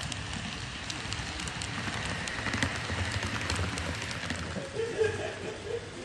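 HO-scale model train rolling past on metal track: a steady rattle of small wheels with quick clicks as they cross the rail joints, tailing off after about four seconds.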